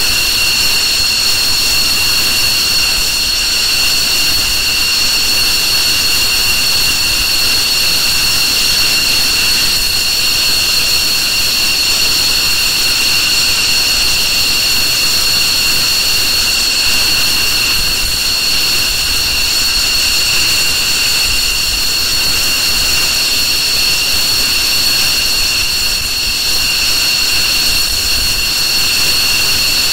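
F-15 fighter's twin F100 turbofan engines running on the ground at a steady setting, with a steady high whine over the jet noise.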